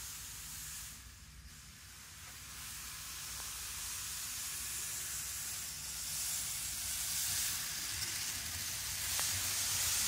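Micro Ace N-gauge 783 series model train running along its track: a steady hiss of the motor and wheels that grows louder as the train draws near, loudest near the end.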